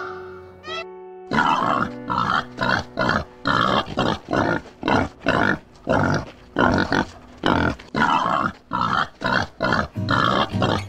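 A pig making a fast run of short, loud calls, about two or three a second, starting about a second in, over background music.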